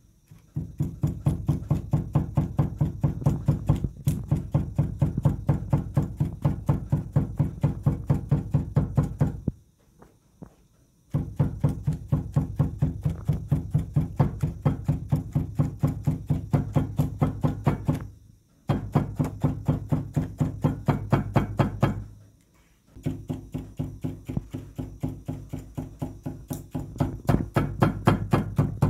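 A weaver beating down a row of knots on a vertical rug loom with a carpet beating comb: rapid, even strikes, about six a second, in runs of several seconds with brief pauses, the warps and frame ringing low under the blows.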